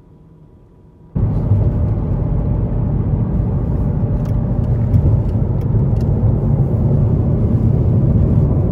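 Steady engine and road noise inside the cabin of a Mercedes-McLaren SLR cruising on an expressway, with its supercharged V8 underneath. It starts abruptly about a second in, after a quieter stretch.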